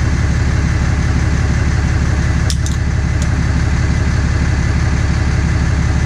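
Pickup truck engine idling, loud and steady, with a couple of sharp clicks about two and a half seconds in.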